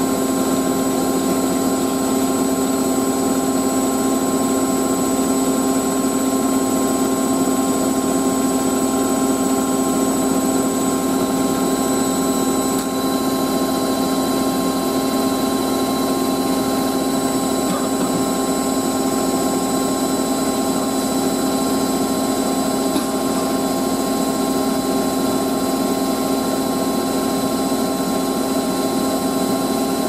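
Hotpoint 9530 Electronic 1000 Plus washing machine in its final spin, the drum turning at a constant speed with a steady motor whine and hum.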